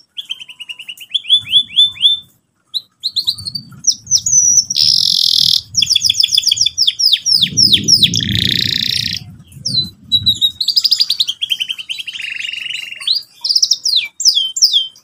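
Domestic canary singing: fast runs of repeated chirping notes and rolling trills, broken by short pauses. A low rumble sits underneath through the middle.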